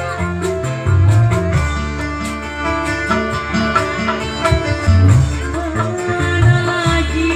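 Live band music played through a PA system, with a steady stepping bass line and a woman singing into a microphone at times.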